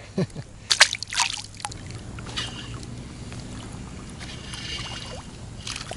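Sharp clatters and splashes on the water beside an inflatable raft in the first two seconds, then water moving and lapping against the raft.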